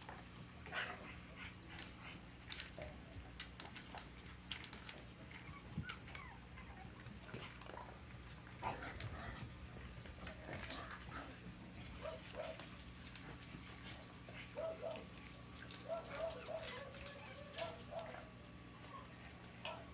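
Six-week-old Bugg (Boston terrier–pug cross) puppies at play: scattered faint clicks and scuffles as they move about and tug at plush toys, with a few short puppy whimpers, most of them in the second half.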